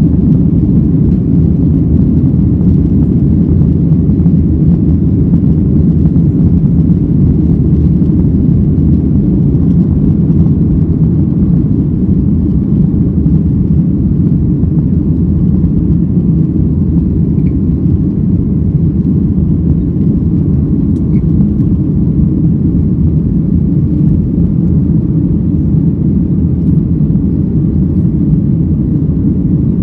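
Steady, loud rumble of a Boeing 737-800's CFM56-7B turbofan engines at high takeoff or climb thrust, heard from inside the passenger cabin.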